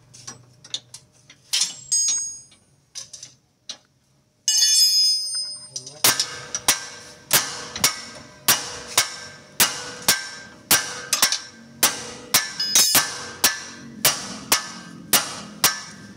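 Metal tools clinking and ringing for the first few seconds. Then, about six seconds in, a hammer starts striking metal in steady blows, a little under two a second, each with a short ring.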